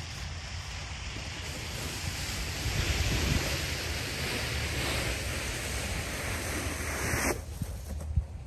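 Snow pusher blade on a hand truck scraping across asphalt as it pushes heavy wet snow, a steady rushing hiss that cuts off abruptly about seven seconds in. A low rumble of wind on the microphone runs underneath.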